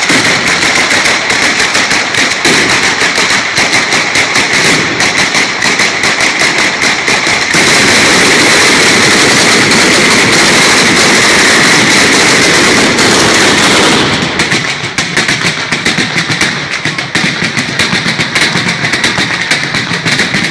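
A ground 'batteria' of firecrackers strung out in lines going off in rapid strings of sharp bangs. About seven seconds in, the bangs merge into one continuous, very loud volley for about six seconds, then thin out to sparser, irregular cracks.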